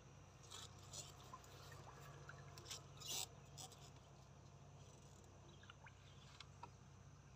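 Near silence, with faint scattered splashes and drips of water falling off a square lift net as it is raised out of still water, the clearest splash about three seconds in.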